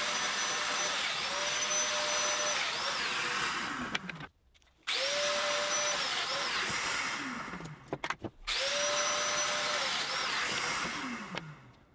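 Festool Domino DF 500 joiner cutting mortises in sapele: the motor runs with a steady whine and the rush of cutting, in short runs of a second or two. Three times the pitch falls away as it winds down, and then it starts up again.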